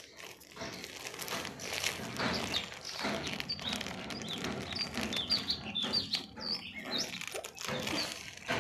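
Plastic courier mailer bag crinkling and rustling as it is handled and torn open by hand, with birds chirping repeatedly through the middle.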